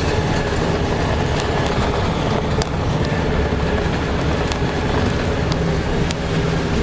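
Steady hum of a car's engine and tyres on the road, heard from inside the moving car.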